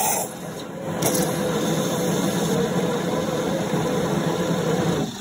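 WMF 2000 S superautomatic coffee machine frothing and dispensing hot milk foam for a cappuccino: a steady hiss of steam over the machine's mechanical hum. It dips briefly about a second in and cuts off abruptly near the end.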